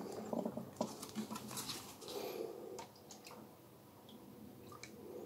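A plastic cup dipped into a bucket of wort to draw a sample: faint splashing and dripping with small taps and clicks of the cup against the plastic bucket, mostly in the first three seconds.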